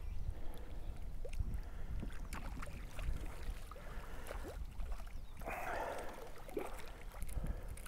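Wind rumbling on the microphone over small splashes of water at the shore. About five and a half seconds in comes a brief burst of splashing as the hooked brown trout is drawn into the landing net.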